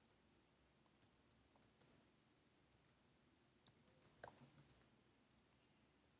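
Faint, scattered clicks of computer keyboard keys as a word is typed, a few isolated keystrokes and then a short run of them about four seconds in.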